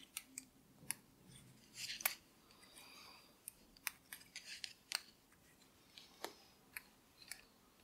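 Faint, irregular clicking of 9 mm metal circular knitting needles tapping together as stitches are knitted in chunky wool yarn, about a dozen clicks.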